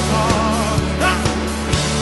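Rock band music: a full band playing loud, with regular drum hits under sustained low notes and a wavering held high note that fades about half a second in.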